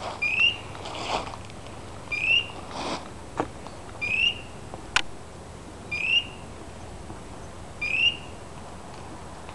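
A dog's beeper collar in point mode, sounding a short rising electronic chirp about every two seconds: the signal that the dog has stopped and is holding a point. Some rustling and a sharp click about halfway through.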